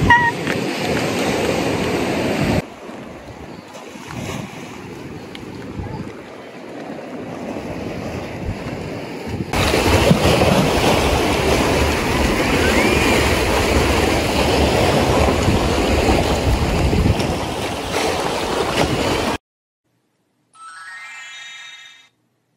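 Sea waves washing against a rock breakwater, with wind on the microphone, in three cuts. The last, from about ten seconds in, is the loudest. It stops abruptly, and a short rising chime follows near the end.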